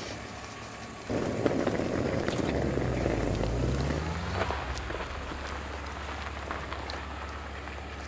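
Hard plastic suitcase wheels rolling over a gravel road, a gritty rattle starting about a second in, over a low hum that rises in pitch partway through.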